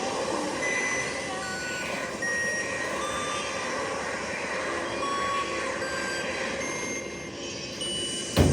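Electronic noise effect: a dense hiss that starts abruptly, scattered with short beeps at changing pitches, ending with a sharp thump near the end.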